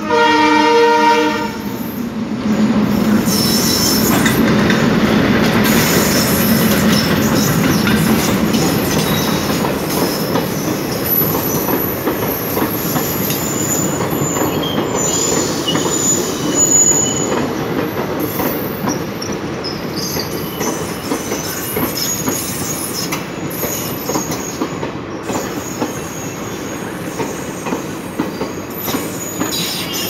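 Twin WDM3D diesel-electric locomotives sound their horns in a loud multi-tone chord that cuts off about a second and a half in. The locomotives then pass close by with a low engine drone, followed by passenger coaches rolling past, their wheels clattering over rail joints with occasional high-pitched wheel squeals.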